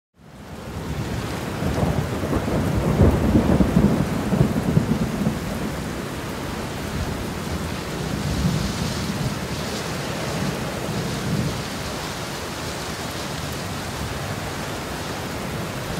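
Heavy rain and rushing floodwater: a dense, steady hiss with a low rumble, loudest a couple of seconds in and then steady.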